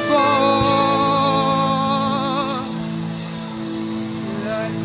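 Church worship music: steady held chords under a voice holding a long wavering note that fades by the middle, and a new sung phrase starting near the end.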